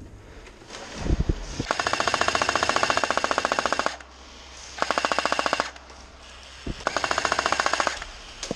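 Airsoft M249 machine gun firing three full-auto bursts as a fast, even clatter: a long burst of about two seconds, then two shorter ones. A couple of dull thumps come just before the first burst.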